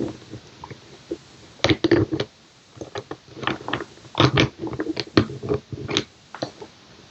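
Metal discs of a disc detainer lock core clicking and rattling as a pick turns them one by one, in irregular bursts of sharp clicks and short scrapes.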